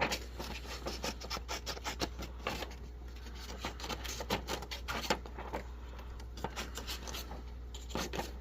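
Spring-loaded scissors of a multitool being worked and handled: irregular light clicks and scraping.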